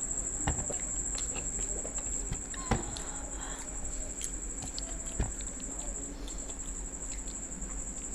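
A steady, high-pitched trill runs on, breaking off briefly about six seconds in. Three sharp knocks of tableware sound while the couple eat at the table, the loudest about three seconds in.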